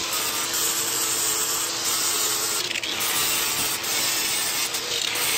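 Electric power sander running steadily, grinding back fiberglass around small holes in a boat's interior, with brief dips in the sound about two and a half seconds in and again near the end.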